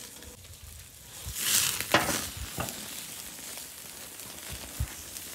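Thick bone-in steak sizzling over a direct charcoal fire as its fat renders and drips into the coals. The sizzle swells louder about a second and a half in, with a sharp pop near two seconds.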